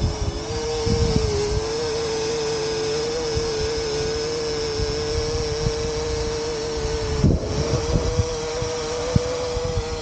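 Parrot Anafi quadcopter hovering, its propellers giving a steady drone with a slight wobble in pitch that briefly breaks off about seven seconds in. Gusts of wind buffet the microphone.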